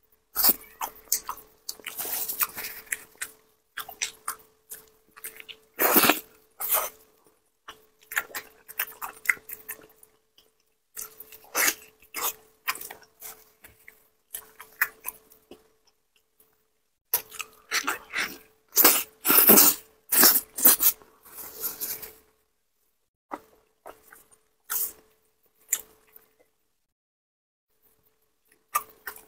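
Close-miked chewing and wet mouth sounds of someone biting into and eating a spicy pig's trotter. They come in short bursts of clicks and smacks with pauses between, and thin out to a few isolated clicks after about 22 seconds.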